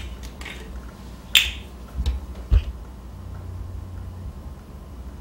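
Sharp clicks and knocks from a small rosewater bottle and a measuring spoon handled over a glass mixing bowl: three clicks come about a second and a half, two, and two and a half seconds in.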